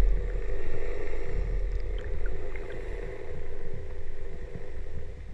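Muffled underwater sound picked up by a camera held below the ocean surface: a steady hum with a low rumble that swells and fades slowly, and a few faint ticks.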